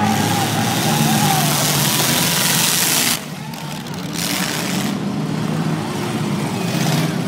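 Several junk race cars' engines running and revving on a dirt track. A loud hiss covers the first three seconds and cuts off suddenly.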